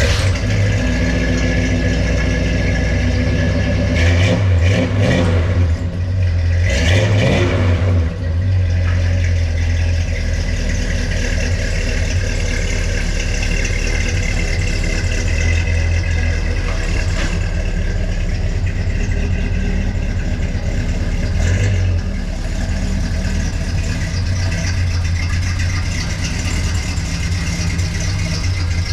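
1974 Ford F-100's 390 cubic-inch FE big-block V8 running through a newly fitted, temporarily clamped muffler. It idles steadily and is revved briefly a few times, twice in the first several seconds and once more later.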